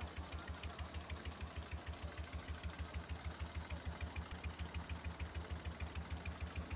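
FOXSEW FX-366-76-12HM long-arm, cam-controlled heavy-duty zigzag sewing machine sewing a zigzag seam in sailcloth at steady speed: an even run of low thumps, roughly half a dozen a second, with light ticks on each stitch.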